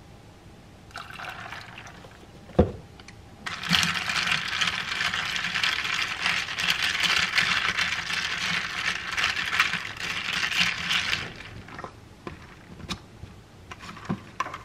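Oat milk poured into a coffee in a plastic cold cup, a knock as the carton is set down, then a long, loud rattling clatter as the drink is stirred in the plastic cup. A few light clicks near the end as the lid and straw go on.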